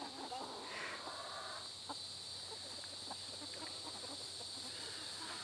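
A flock of hens clucking and calling while they feed, with one longer call about a second in and scattered short clucks after it.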